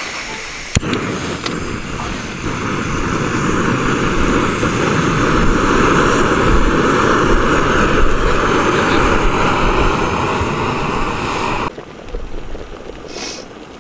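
Jetboil Flash 2 gas canister stove burner running with a steady hiss while heating water; it grows louder over several seconds and stops abruptly near the end.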